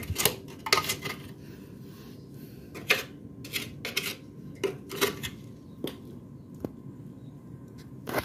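Irregular metallic clinks and knocks, about a dozen of them, from metal tools and parts being handled against a motorcycle engine.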